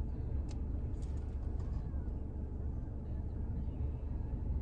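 Low steady rumble of the parked Jeep's engine idling, with a few faint clicks about half a second and a second in.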